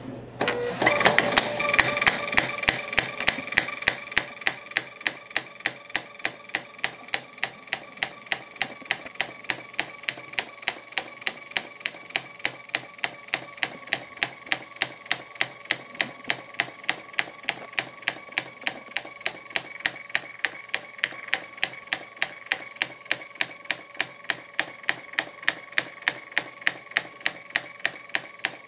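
Polono thermal label printer running a long print job on a roll of 2.25 x 1.25 inch labels. Its feed motor gives a steady whine, with a sharp click about three times a second as the labels advance. It is loudest for the first few seconds after starting, then settles.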